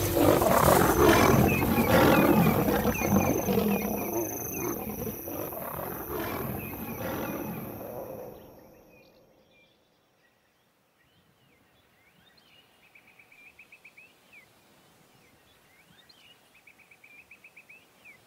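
Lions roaring during a fight, an attack by nomadic male lions, loud for about eight seconds and then fading away. After a short hush come faint chirps with short rapid trills.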